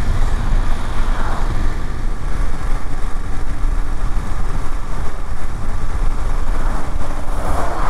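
BMW F750GS parallel-twin motorcycle engine running steadily at road cruising speed, under a continuous low rumble of wind and road noise on the camera microphone.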